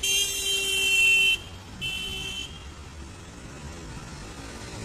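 A vehicle horn honks twice, a long honk of over a second and then a shorter one, over the steady noise of street traffic.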